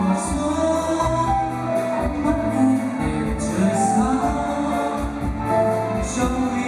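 A man singing live with a band behind him: electric guitars, bass, keyboard and drums with cymbal splashes every few seconds.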